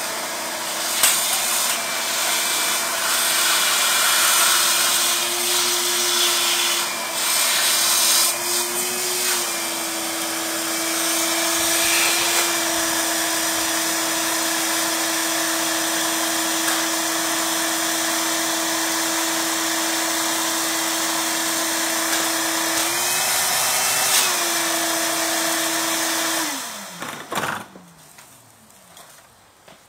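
Vacuum cleaner motor running steadily, its pitch rising briefly three times. It is switched off near the end and winds down to a stop.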